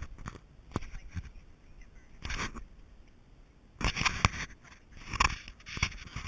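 Irregular close-up crunching and scraping as kangaroos chew hand-fed carrot pieces, with a louder burst of rubbing and knocking about four seconds in as one noses the camera.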